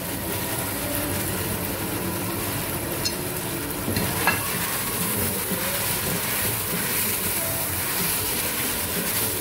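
Chicken pieces and chopped vegetables sizzling steadily in sauce in a non-stick pot as a spatula stirs them, with a couple of light clicks about three and four seconds in.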